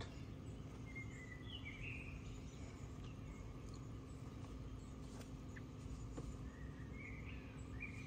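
Faint birds chirping a couple of times, about two seconds in and again near the end, over a steady low background hum.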